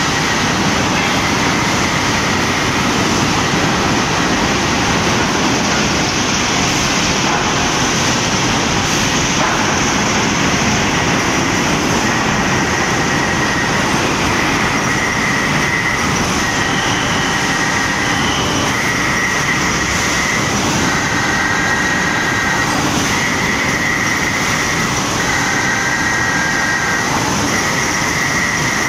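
Hot rolling mill at work: a steady loud industrial din from the 3-Hi roughing mill and its roller table as a red-hot 130 mm square steel billet is rolled. From about halfway a high-pitched squeal comes and goes in repeated spells of about a second each.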